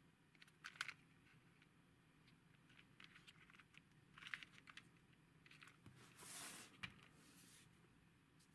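Near silence with faint scattered clicks and rustles of hands handling a small plastic toy car, with a short rustle about six seconds in.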